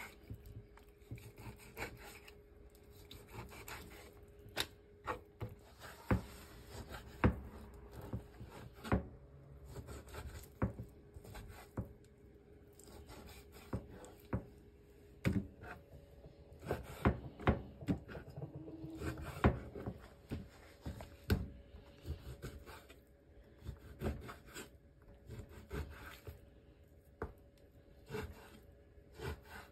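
Food-prep handling: irregular knocks, clatters and scraping of utensils against wood and cookware. Under them runs a faint steady hum that steps up in pitch about halfway through.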